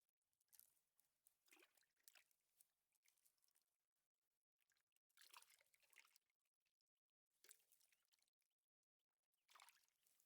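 Near silence, with a few faint, irregular bursts of noise.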